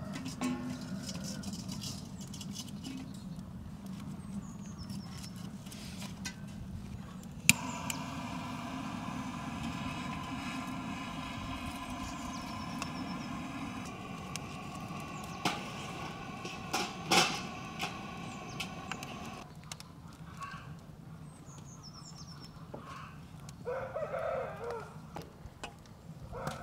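Outdoor backyard ambience with chickens clucking and small birds chirping, and a few sharp clicks. Through the middle runs a steady droning tone lasting about twelve seconds.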